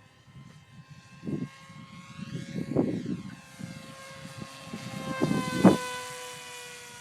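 Hawk Sky remote-control model plane's electric motor and propeller whining steadily in flight, with a sweep in its sound about three seconds in as it passes overhead. Gusts of wind bump against the microphone now and then.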